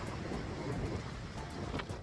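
Strong wind blowing across the phone's microphone: a steady, rumbling hiss.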